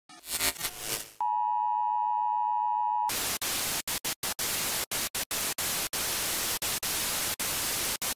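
TV-static glitch sound effects: a short garbled burst, then a steady test tone of about 1 kHz for about two seconds, then hissing white-noise static that cuts in and out in rapid, uneven dropouts.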